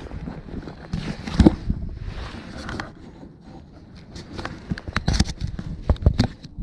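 Irregular crunching, scraping and knocking of handling noise: clothing rubbing against a body-worn camera and boots stepping on a wet, sandy creek bank. The sharpest knocks come about a second and a half in and again in a close cluster in the last two seconds.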